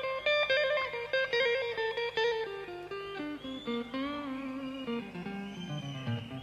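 Live rock electric guitar solo: a run of quickly picked single notes working downward, then held notes with vibrato, settling onto lower notes near the end.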